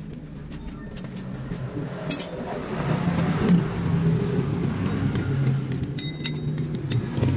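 A vehicle engine running steadily in the background, growing louder over the first three seconds. Light metal clinks come and go as scooter CVT parts, the rear pulley and its washers, are handled.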